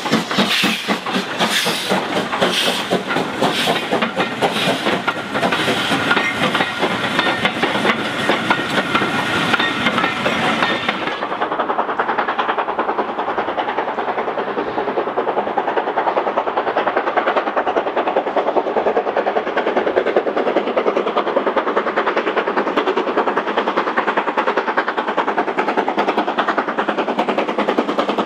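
Coaches behind BR Standard Class 7 'Britannia' Pacific No. 70013 clatter over rail joints as they pass close by. About 11 seconds in, the sound changes to the approaching two-cylinder steam locomotive working hard, its exhaust beating in quick, even succession.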